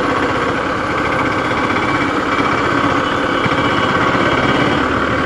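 Motorcycle engine running steadily under a constant rush of road and wind noise.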